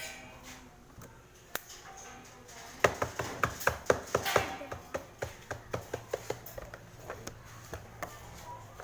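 A quick, irregular run of sharp clicks and taps, several a second, starting about three seconds in and thinning out near the end, a few with a short bright ring.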